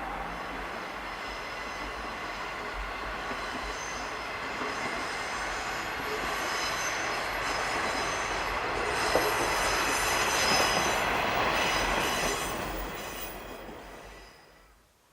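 KiHa 120 diesel railcar running along the track, its wheels squealing with a thin high ring over the running noise. The sound builds to its loudest about ten to twelve seconds in, then fades away near the end.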